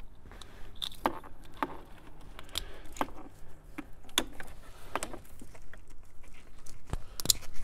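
Plastic wiring-harness connectors clicking and rattling in hand as an aftermarket radio harness adapter is plugged into the car's factory radio plugs: irregular small clicks, with a couple of sharper ones near the end.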